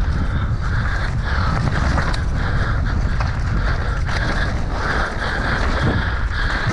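Mountain bike descending a trail at speed: wind buffeting the microphone over constant tyre and trail noise, with short rattles and clicks from the bike.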